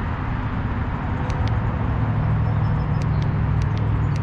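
Low rumble of road traffic with a steady vehicle engine hum that grows stronger about a second and a half in. Short sharp clicks come in four quick pairs over it.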